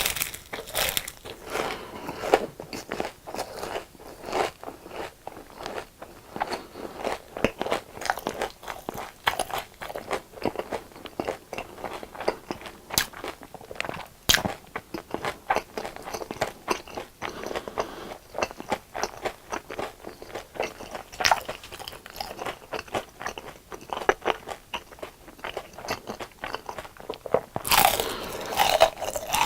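Close-miked biting and chewing of crisp deep-fried food, the breaded coating crunching and crackling with each bite in a continuous, uneven run of crunches.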